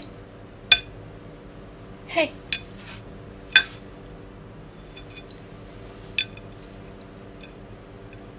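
A wine glass clinking against a china plate of abalone: three sharp glass chinks with a brief ring, about a second in, three and a half seconds in and six seconds in, plus a lighter tap near two and a half seconds, as the glass is tipped to pour over the shellfish.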